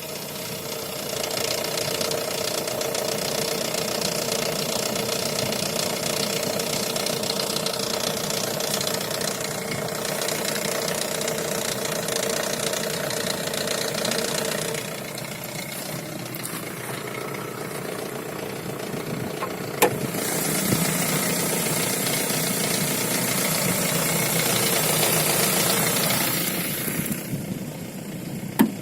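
Lada Vesta with a manual gearbox running, with a steady two-tone drone in the first half that changes about halfway; the gearbox is making an extraneous noise whose origin the owner does not know. Two sharp clicks come about two-thirds in and just before the end.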